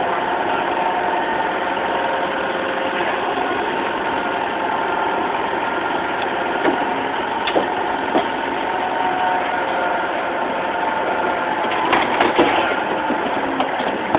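Bobcat 853 skid-steer loader's diesel engine running steadily while it holds a car up on its lift arms, with a few sharp knocks, several of them close together about twelve seconds in.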